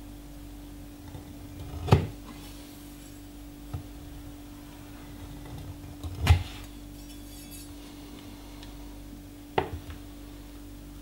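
Heavy cleaver-style Almazan kitchen knife cutting through a round of cheese and knocking down onto a wooden cutting board, twice, with a lighter knock near the end. A steady faint hum runs underneath.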